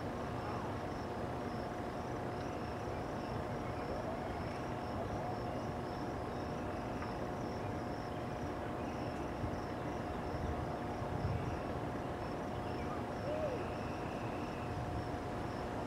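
Outdoor ambience: a steady low rumble with a constant hum, a high insect-like trill pulsing evenly throughout, and a few faint short chirps.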